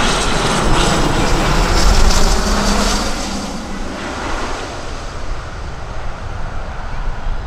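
Embraer ERJ regional jet on final approach, its rear-mounted turbofans giving a rushing roar with a high whine. It is loudest about two seconds in and falls away after about three seconds to a lower steady rush.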